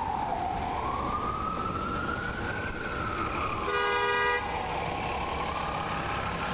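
Ambulance siren in a slow wail, gliding down, up, then down again and starting to rise, over a low vehicle rumble. About four seconds in, a short horn blast of under a second sounds over it.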